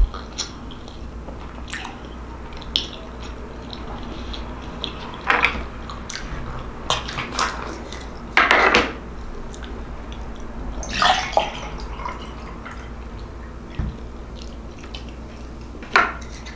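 Close-up eating sounds, then a plastic orange juice bottle being handled and juice poured into a glass, with a few short knocks of bottle and glass on the table. A low steady hum runs underneath.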